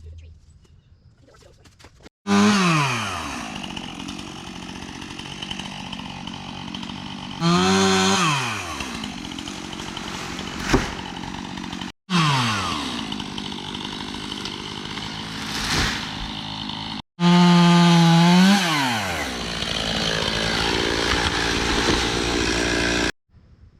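Gas chainsaw cutting through oak trunks in several stretches that start and stop abruptly. Each begins with the engine revved high, and its pitch drops quickly as the chain bites into the wood and the saw runs on under load. A single sharp crack comes about midway.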